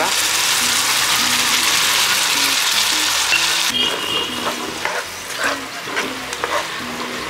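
Chicken curry sizzling hard in a pan as cooked gongura (sorrel leaves) goes in. About three and a half seconds in, the sizzle drops off and a spoon stirs and scrapes through the curry in separate strokes.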